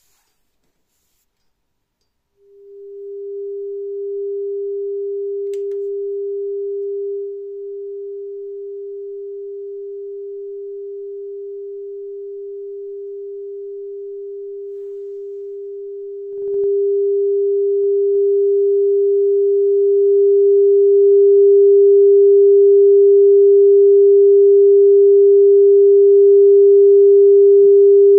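A steady pure test tone of about 400 Hz comes in about two seconds in. It drops slightly in level around seven seconds, then steps up with a faint click at about sixteen seconds and grows a little louder towards the end.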